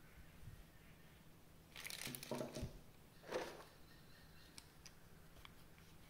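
Quiet handling of an action figure's packaging during unboxing: two short rustling scrapes about two and three and a half seconds in, then a few light clicks.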